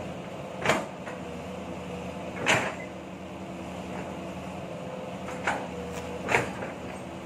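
Kobelco SK07 long-arm excavator's engine running steadily as the bucket cuts into a dirt slope. Four sharp clunks from the bucket and arm come at uneven intervals.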